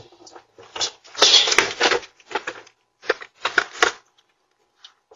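Stroller rattling and clattering in a series of irregular bursts as it is lifted and bumped down concrete steps.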